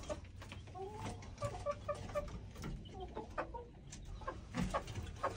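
Domestic hens clucking softly in short runs of brief notes, with a few light clicks and knocks.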